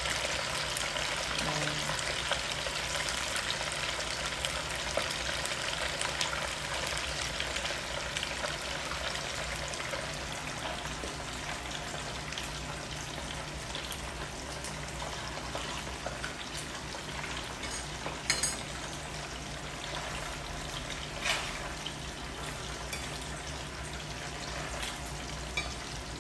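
Coated pork tenderloin pieces deep-frying in hot oil in a stainless steel pan: a steady sizzling bubble that eases slightly as it goes. A couple of sharp clinks of a metal utensil against the pan come in the second half.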